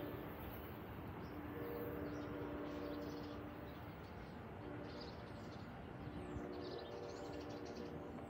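Distant train horn playing a chord in a long–long–short–long sequence: the end of one long blast, another long blast, a short one, then a long one. This is the pattern sounded for a grade crossing. Small birds chirp faintly alongside.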